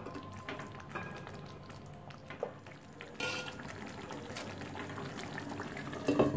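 Thick brinjal curry bubbling and popping as it simmers in a nonstick pan, with a spatula stirring and scraping through it. Near the end a glass lid clatters down onto the pan, the loudest sound.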